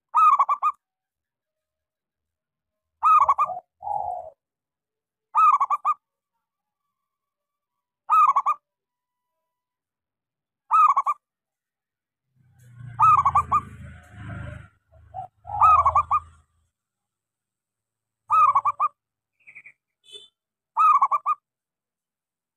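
Local zebra dove (perkutut) cooing: a short phrase repeated nine times, about every two and a half to three seconds. A low rumbling noise runs under the calls for a few seconds in the middle.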